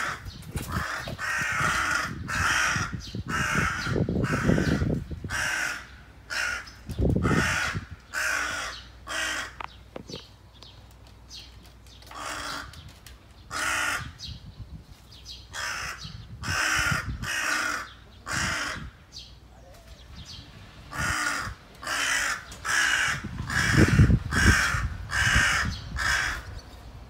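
A crow cawing over and over: a long run of harsh caws, about one or two a second, in several bouts with short pauses between them. Now and then a low rumble sounds underneath.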